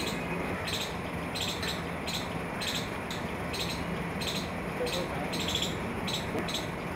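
Street ambience: a steady low hum and background noise under irregular short, high chirps, two or three a second.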